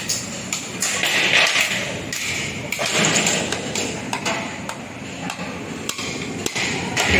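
Construction-site clatter: irregular metal knocks and clanks, several a second, as steel scaffold pipes and formwork parts are handled and hammered, over a steady background din.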